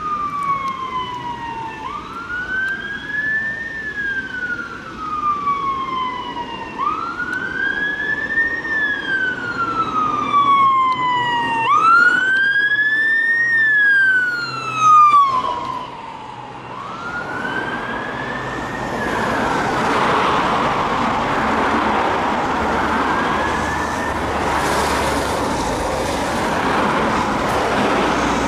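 Ambulance siren on a slow wail, each cycle a quick rise and a long fall about every two and a half seconds. It grows louder as the ambulance comes up and passes about fifteen seconds in, where its pitch drops. It then fades into the steady noise of heavy road traffic.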